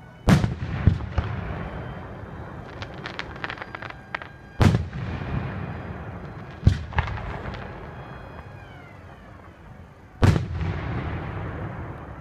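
Aerial fireworks shells bursting: about five booms, two close together right at the start, then one each at about four and a half, seven and ten seconds in, each trailing off in a long rumble. A patter of small crackling pops comes about three seconds in.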